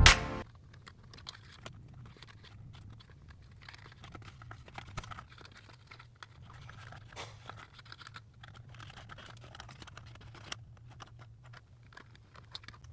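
Faint handling noises: scattered small clicks and crinkles as wire twist ties are untwisted from the RC truck's packaging, over a low steady hum.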